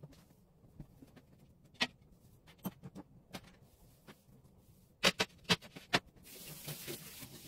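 Clicks and knocks of kitchen items being handled and set down on a counter, with a quick run of four sharp clacks about five seconds in, then a brief soft hiss near the end.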